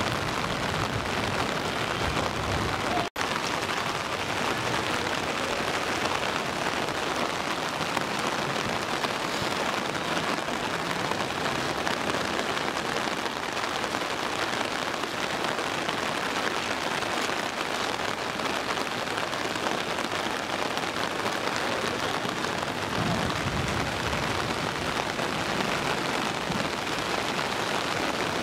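Heavy rain falling, a steady hiss. It drops out for an instant about three seconds in.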